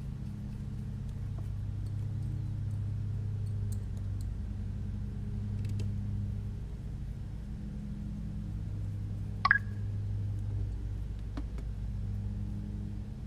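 Hands handling the carbon-fibre frame of a quadcopter drone during reassembly: faint ticks and one sharp metallic click a little past two-thirds of the way through, over a steady low hum.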